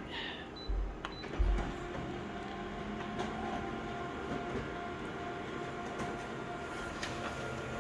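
Two dull low thumps about a second in, then a steady mechanical hum with a faint steady tone.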